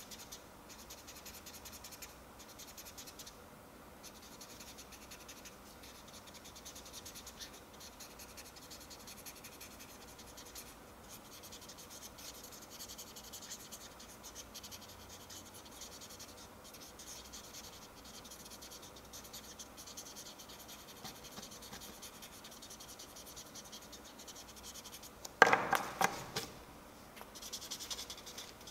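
Permanent marker scratching as it draws on a small round object, a fine, steady scratching with short gaps. Near the end, a single sharp knock followed by a brief clatter.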